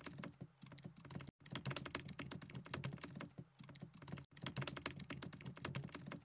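Computer keyboard typing: rapid, irregular key clicks that stop for a moment about 1.3 s and 4.3 s in, then start again.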